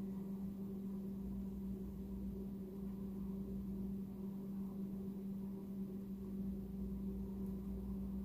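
Steady low hum over faint hiss: room tone, with no distinct event.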